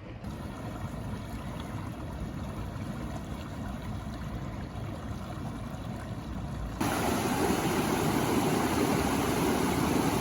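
Water running over rocks in a creek: a steady rush that jumps suddenly louder about seven seconds in.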